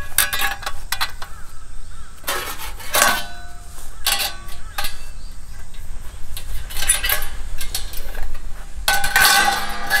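Stainless steel plates being set against and slotted onto a stainless steel fire-pit frame: irregular metal clanks and scrapes, some ringing briefly, the loudest near three seconds in and near the end.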